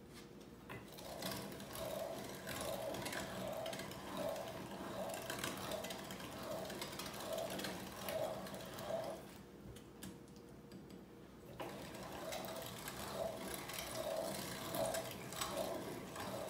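Hand-cranked metal meat grinder being turned by hand, its auger grinding chilled venison and pork: a rhythmic mechanical grinding that repeats about twice a second. The cranking stops for about two seconds about ten seconds in, then starts again.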